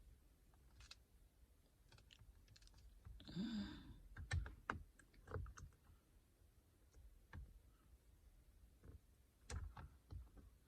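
Faint, scattered light clicks and taps of fingers pressing on a tempered glass screen protector, with a short rustle about three seconds in.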